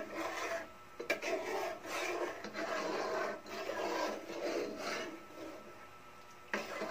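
Metal ladle scraping the bottom and sides of a cooking pot while stirring sauce, in strokes about once a second that stop about five seconds in; a sharp knock near the end.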